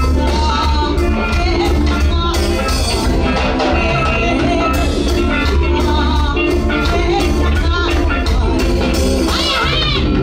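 Live Somali pop song played by a band, with a woman singing lead into a microphone over congas, keyboard, electric bass and drum kit, and a strong steady bass line underneath.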